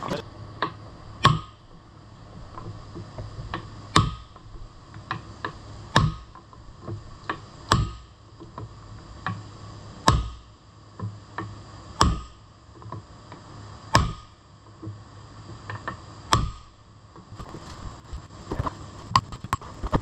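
Hammer blows on a wooden stick pressed onto a piston stuck by rust inside a cylinder sleeve, driving it to knock the piston free. There are sharp strikes about every two seconds with lighter taps between, each with a short ring of metal.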